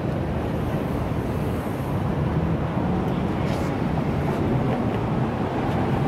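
Steady low rumble of outdoor city background noise, without a clear single source.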